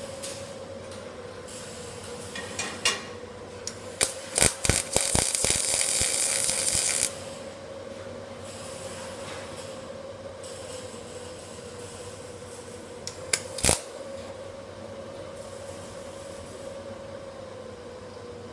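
Fire-door edge welding machine running with a steady hum. About four seconds in comes a cluster of mechanical clicks, followed by about two seconds of loud hissing that cuts off suddenly. Two more clicks sound near the end.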